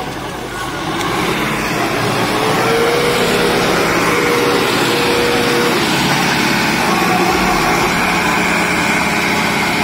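Sonalika DI 60 tractor's diesel engine running hard under load while the tractor, bogged in deep mud, works its way out of a rut. The engine grows louder about a second in and then holds steady.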